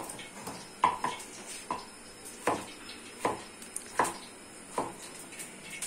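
Knife slicing peeled raw potatoes on a wooden cutting board, the blade knocking the board with each cut, about once every three-quarters of a second.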